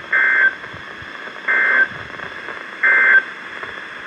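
Emergency Alert System end-of-message data bursts on NOAA Weather Radio: three short bursts of digital data tones about 1.4 s apart, closing the warning broadcast, over a steady radio hiss.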